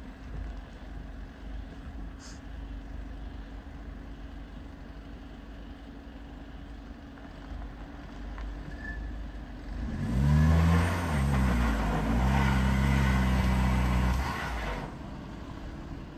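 Front-wheel-drive Audi A6's engine running at low revs, then revved hard about ten seconds in for some five seconds, with its front tyres spinning on the loose dirt of the steep slope, before it drops back. The car is struggling for grip and failing to climb.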